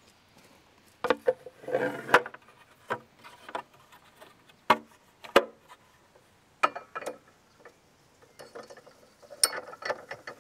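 Hard clicks, clunks and knocks of a chainsaw scabbard being handled and fitted onto its snap-lock mounting base, coming irregularly with a few quick clusters of rattling.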